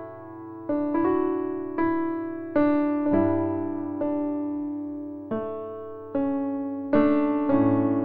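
Soft, slow piano music: single notes and chords struck about once a second, each left to ring and fade.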